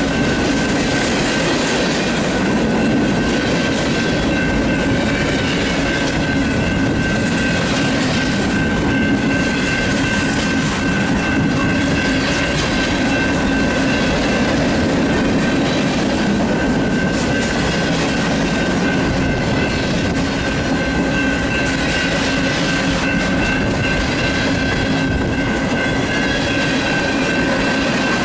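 Freight train cars (boxcars and tank cars) rolling past at a grade crossing: a steady rumble and clatter of steel wheels on the rails. A thin, steady high tone runs through it.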